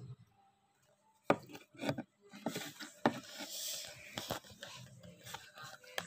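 Handling a model made of stacked cardboard slices: a string of sharp taps and clicks, with a scratchy rubbing in the middle as a pen-like tool is worked against the layered edges.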